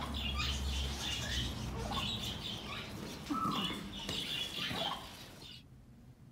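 Green-cheeked conures chirping in a run of short, high calls, which stop abruptly about five and a half seconds in.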